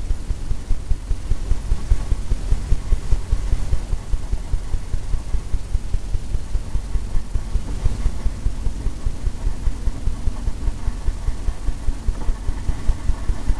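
Quick, uneven run of dull low thuds: a dry blender brush tapped over and over against a stretched canvas, diffusing wet oil paint.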